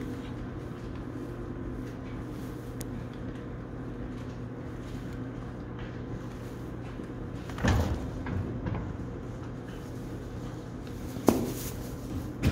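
A steady low hum runs throughout. About eight seconds in, a brief rustle and thud comes from the newborn foal struggling in the straw bedding as it tries to get up. A sharp knock with a short falling ring follows a little over eleven seconds in.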